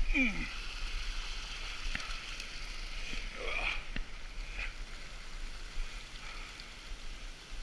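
Steady splashing of a low-flow waterfall, with a few scattered clicks and knocks and a low rumble of wind on the microphone. A brief low voice-like sound right at the start, and a couple more short ones later.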